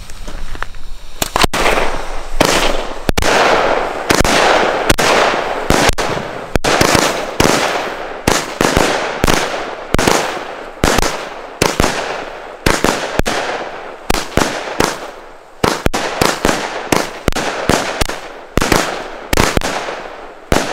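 Consumer firework battery, Röder 'Billig und Willig Nr. 2' (25 shots, 25 mm calibre), firing after a second of burning fuse: a rapid, even series of sharp launch and burst bangs, one after another.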